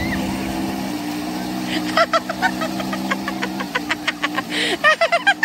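A steady low motor hum, with a bird calling in quick repeated notes from about two seconds in.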